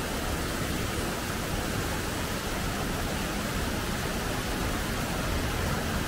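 Mountain waterfall and its stream rushing steadily over rock ledges and stone steps: an even, unbroken rush of falling water.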